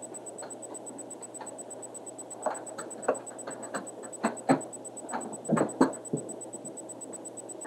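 Fly-tying handling noise: irregular clicks and rustles of fingers, thread and angel hair at a fly-tying vise close to the microphone, with the louder clicks bunched between about two and six seconds in.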